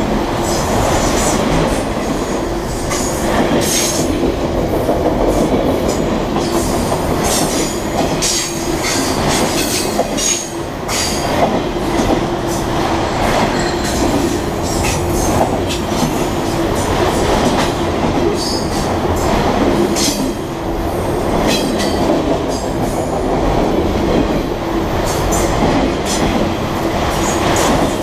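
Freight train of boxcars and autorack cars rolling past at close range: a steady rumble of steel wheels on rail, with clickety-clack and frequent short, sharp high-pitched squeals and clanks from the cars.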